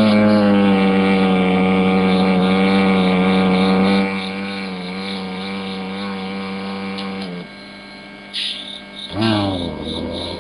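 Giant panda purring: one long steady hum with a rising start, lasting about seven seconds and loudest for the first four, then a second shorter hum near the end that falls in pitch.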